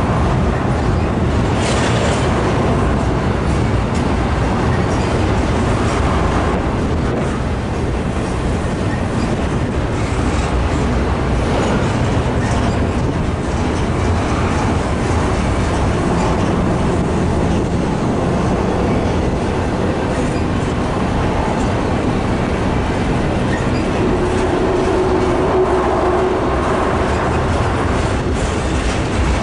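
Norfolk Southern intermodal freight train's cars, double-stack containers and trailers on flatcars, rolling steadily past, with the continuous noise of steel wheels on the rails.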